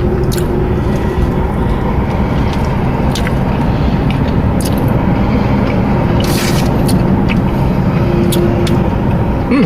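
Steady low rumble with a few faint tones, and scattered small clicks from a person chewing and eating.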